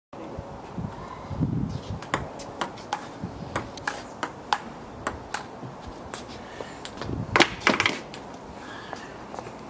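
Ping-pong ball clicking against the table and paddles in a rally, sharp taps at uneven intervals of roughly half a second, with a few louder hits in quick succession about seven and a half seconds in.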